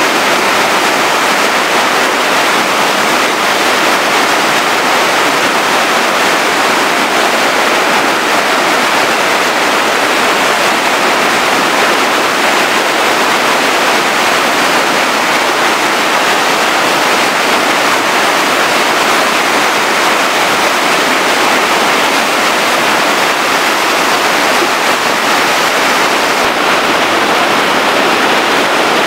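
A small stream in flood after a night's thunderstorm, its muddy, turbulent water rushing fast through a concrete channel with a loud, steady rushing noise.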